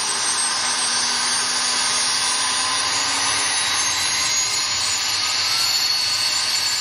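Boeing CH-47 Chinook tandem-rotor helicopter running on the ground with its rotors turning: a steady high turbine whine over a loud, even rushing noise.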